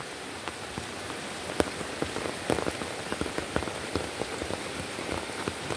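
Steady rain falling, with many separate drops tapping sharply through the hiss.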